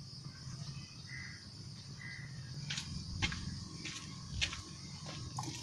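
Rural outdoor ambience: a steady insect drone with a couple of short bird chirps, and footsteps on a dirt-and-gravel road as a person walks up, a few short crunches in the middle of the stretch.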